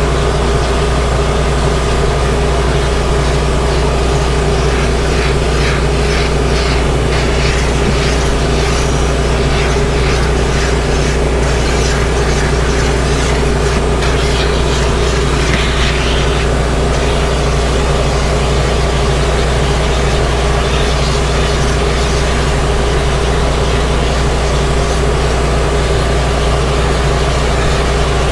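Detailing equipment motor running steadily with a constant, loud drone and hum.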